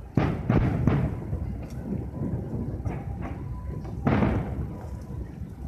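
Aerial firework shells bursting in deep booms that echo off: three in quick succession near the start and another, single boom about four seconds in.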